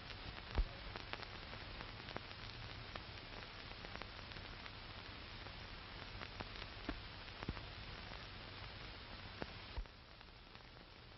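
Surface noise of an old film soundtrack: a steady hiss and low hum with scattered pops and crackles, one louder pop about half a second in. The hiss drops noticeably near the end.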